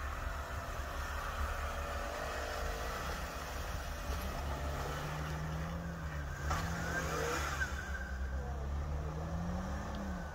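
Jeep engine pulling under load, its note coming in about four seconds in, wavering, then rising near the end, over a steady low rumble.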